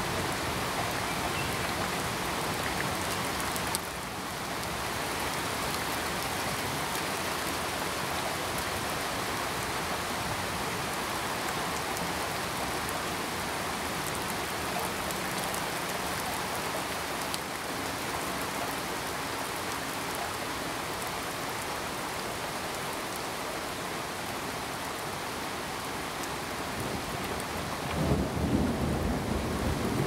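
Steady rain falling, with a low rumble of thunder coming in near the end.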